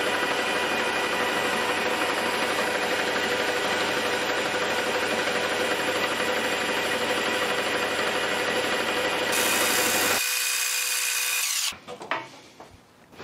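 Metal lathe running under power while taking a light turning cut about half a millimetre deep: a loud steady whine with a hiss from the tool in the cut. It grows brighter about nine seconds in, then stops suddenly near the end.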